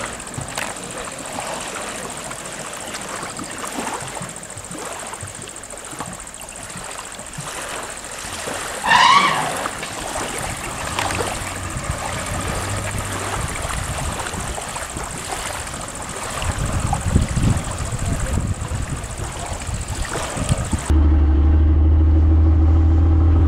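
Wind and water noise, with a brief, loud, wavering high call about nine seconds in. Near the end a boat's outboard motor is heard running steadily and close.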